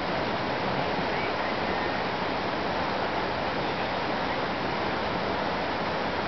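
Rushing creek water: a steady, even rush of flowing mountain stream.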